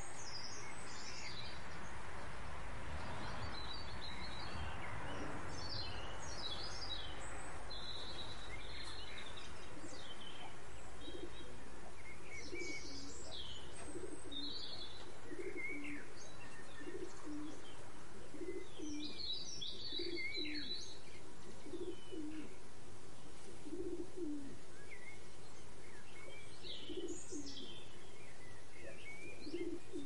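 House sparrows chirping on and off, short high chirps, with a dove cooing low and repeatedly, about once a second, from about halfway through.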